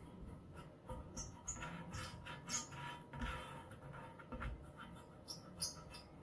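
Fingertips rubbing and pressing a vinyl lettering decal down onto a wheel rim, making faint, irregular squeaks and scratches as the edges are worked flat.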